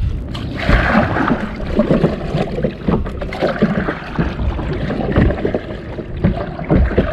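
Kayak paddle strokes: irregular splashes of the blade in the water and water slapping against the plastic hull, with wind rumbling on the microphone.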